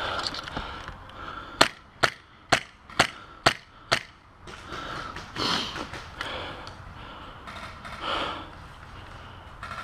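Airsoft gun fired six times in semi-automatic, single sharp shots about two a second.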